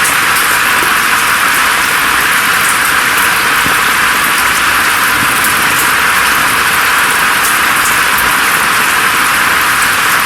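Steady rain falling through forest foliage: an even, bright hiss with little low rumble, and faint scattered drop ticks on top.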